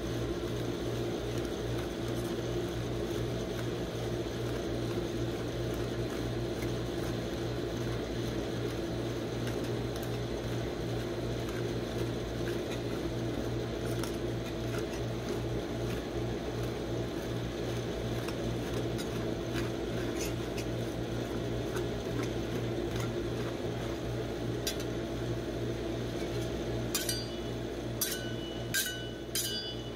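Steel spatulas scraping and tapping on the frozen steel plate of a rolled-ice-cream machine as a crushed-Cheetos-popcorn ice cream mix is smoothed flat, over the machine's steady low hum. A few sharp metallic clinks come near the end.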